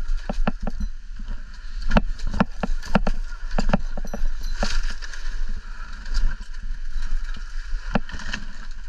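Curved pruning saw cutting palm fronds in quick strokes, about four a second for the first few seconds, then a few single knocks. Steady wind rumble on the microphone underneath.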